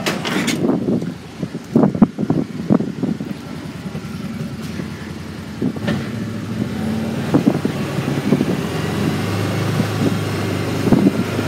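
A vehicle's engine running steadily as it drives along, with occasional knocks and rattles.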